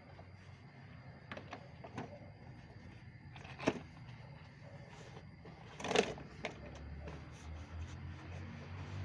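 Scattered knocks and clatter from handling a plastic wet/dry shop vacuum during cleaning, with two sharper knocks about a third and two thirds of the way in. A low rumble rises near the end.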